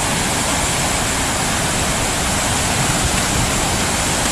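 Waterfall's rushing water: a steady, even hiss and rumble of falling water.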